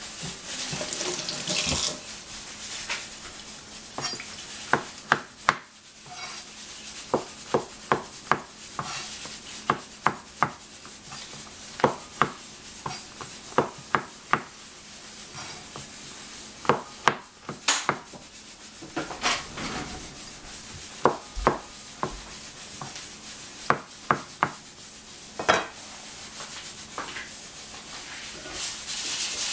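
Chef's knife slicing shiitake mushrooms on a plastic cutting board: irregular sharp knocks as the blade comes down on the board, about one or two a second, with rustling handling noise near the start and rising again near the end.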